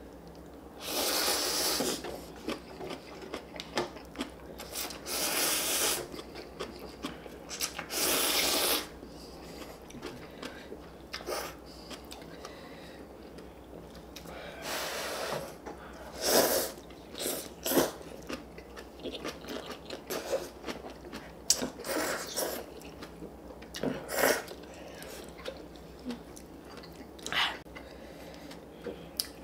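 Ramen noodles being slurped in long, loud pulls of about a second each, three of them in the first nine seconds, then shorter slurps among wet chewing and small clicks.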